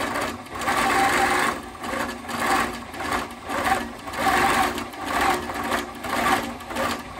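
Longarm quilting machine stitching an edge-to-edge pattern through a quilt, the motor and needle running fast. The sound swells and eases over and over, every second or so.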